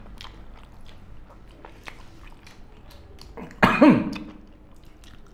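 People eating pork curry and rice by hand: faint chewing and small wet mouth clicks, then one loud short cough about three and a half seconds in.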